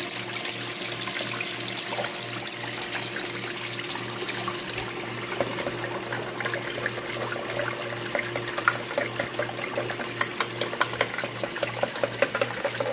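Water rushing and spraying down a hex-mat sluice, over a steady low machine hum with a regular pulse. From about five seconds in, small ticks and spatters join it as tailings are fed into the head of the sluice.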